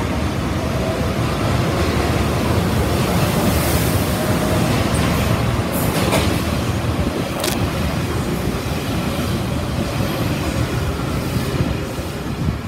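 Taiwan Railways express electric multiple unit running through an underground station at speed without stopping: a loud steady rumble of wheels and motors echoing in the station box. There are two sharp high clicks around the middle, and the sound drops off near the end as the tail of the train passes.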